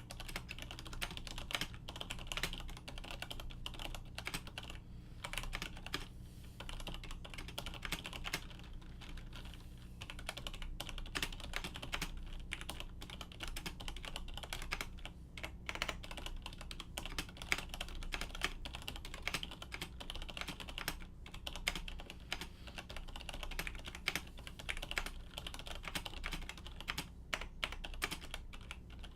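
Typing on a Siemens Nixdorf keyboard with stock Nixie switches, a steel plate and stock ABS keycaps: a continuous run of irregular key clicks.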